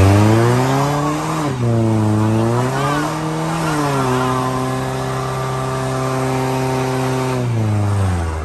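Mercedes-AMG's engine revved hard and held high during a burnout, with the rear tyre spinning and squealing. The revs climb, dip briefly twice, hold steady, then drop away near the end.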